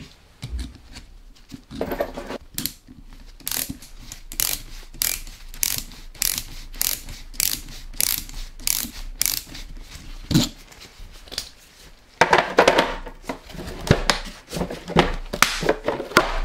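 Ratcheting ring spanner clicking in an even rhythm, about two clicks a second, as it turns a stud extractor to unscrew a cylinder stud from the Simson M541 engine's crankcase. Louder metallic rattling comes near the end.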